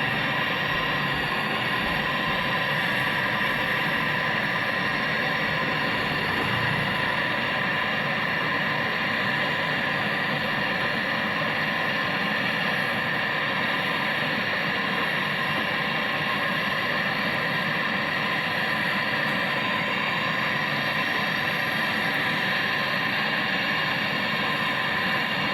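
Gas brazing torch flame burning with a steady hiss while joining copper pipe.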